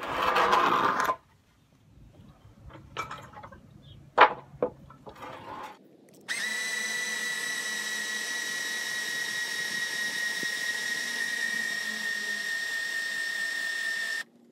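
Electric Atwood truck-camper jacks running together for about eight seconds, a steady motor whine that starts about six seconds in and stops sharply just before the end, lifting the camper. Before it, a brief scrape and a few sharp knocks.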